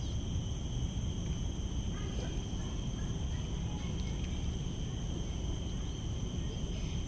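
Tropical garden ambience: a steady, high-pitched drone of insects over a low rumble, with a few faint bird chirps about two seconds in.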